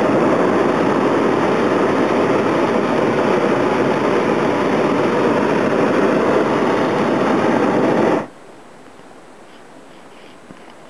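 Hot air balloon's propane burner firing in one loud, steady blast of about eight seconds, starting and cutting off abruptly.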